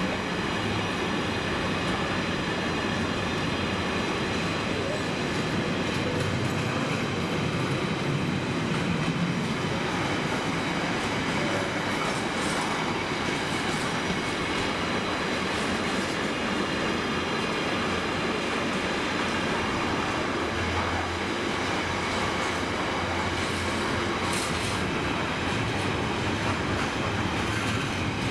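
Container flat wagons of a long intermodal freight train rolling past: a steady, even noise of wheels running on the rails.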